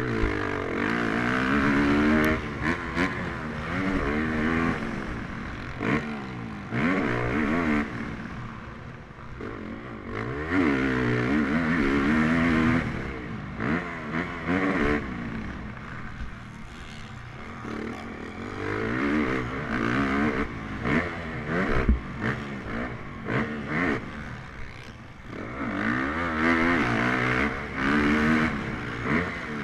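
Motocross bike engine heard from onboard at race pace, revving up and falling off again and again as the rider accelerates, shifts and brakes, with wind noise and sharp knocks.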